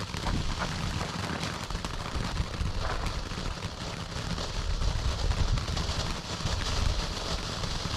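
Lit firework burning with a steady fizzing hiss and many rapid small crackles, over a low rumble.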